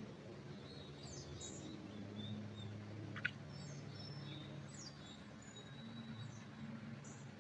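Forest birds chirping and whistling faintly in short, scattered calls over a low steady hum, with one sharp tick about three seconds in.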